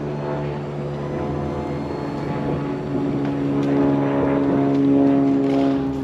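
Electric drive motor and gearbox of a Pride Mobility Pursuit 2 mobility scooter whining steadily while it drives along, growing louder from about halfway.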